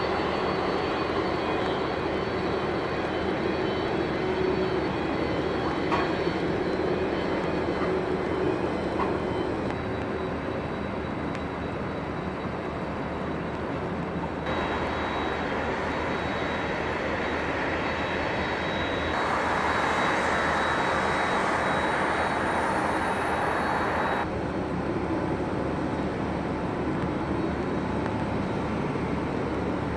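Boeing 777 freighter's jet engines running with a steady rumble and a thin high whine. The sound jumps abruptly a few times, and a faint high whistle rises in pitch about twenty seconds in.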